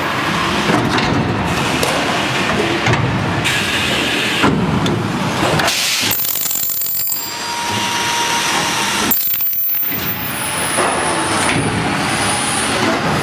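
Geocell welding machine running: dense mechanical clatter and noise that dips briefly every few seconds, with a faint high whine at times.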